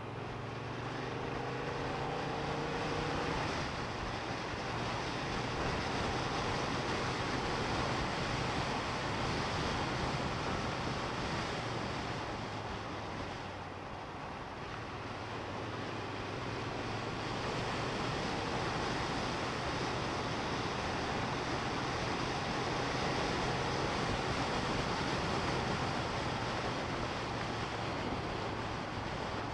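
Triumph Bonneville T120 parallel-twin engine running on the move under heavy wind rush over the microphone. The engine note rises in pitch over the first few seconds as it accelerates, dips about halfway through as it eases off, then holds steady.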